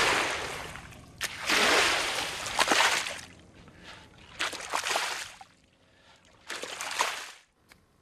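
Shallow brine in a salt-pan pond swishing and splashing as a long-handled rake is pushed through it, in four separate strokes about every one and a half to two seconds, with a few sharp clicks.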